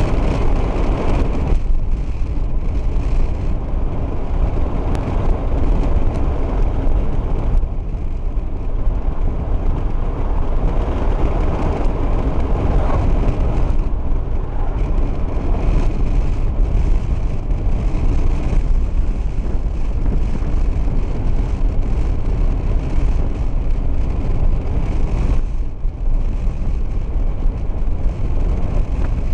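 Steady road noise inside a moving car: tyre and wind rumble, heaviest in the low end, with a few brief dips.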